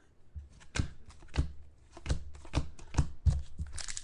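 Trading cards being handled and flipped through by hand: a series of sharp taps and flicks, about one every half second.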